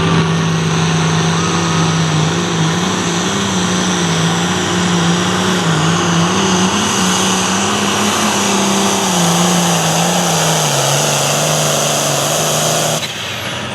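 Diesel engine of a hot farm class pulling tractor running hard at high revs under load, its pitch wavering up and down over the pass. The sound cuts off suddenly near the end.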